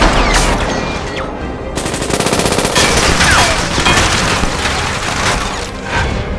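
Film gunfire from a replaced sound-effects track: heavy shooting throughout, with a rapid automatic burst about two seconds in.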